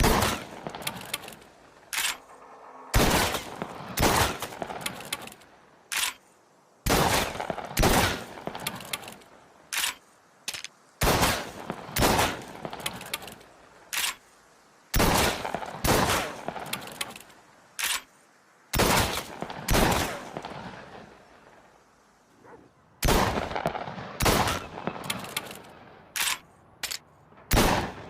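Lupara, a sawn-off double-barrelled shotgun, firing repeatedly, the shots mostly in pairs about a second apart, each with a reverberating tail. Short, lighter clicks fall between some of the shots.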